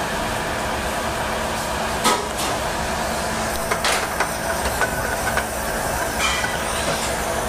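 Steady hissing kitchen noise with a few light metal clinks of a copper pot being handled on the stove, the sharpest about two seconds in.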